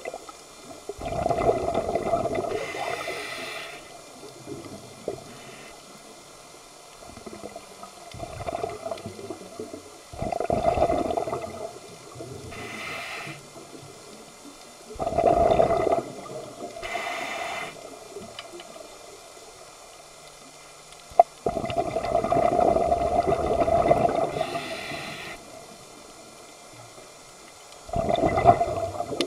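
Scuba diver breathing through a regulator, heard underwater: a gush of exhaled bubbles about every five seconds, with the regulator's hiss on each inhale in between. A single sharp click sounds about two-thirds of the way through.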